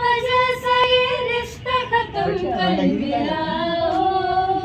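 A woman singing without words, holding long notes: a steady lower note for about the first two seconds, then a higher held note near the end.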